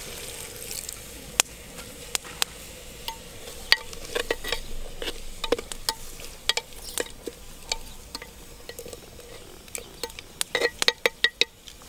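Metal spoon stirring in a clay pot of simmering greens over a wood fire, with scattered clicks and a faint sizzle, then a quick run of clinks and scrapes against the pot near the end.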